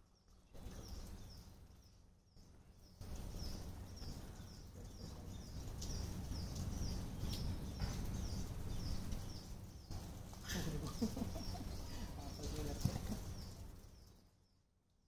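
A bird's short high chirp, repeated about twice a second, over a low outdoor rumble.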